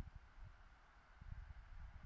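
Near silence: light wind buffeting the microphone in uneven low rumbles, over a faint steady hiss.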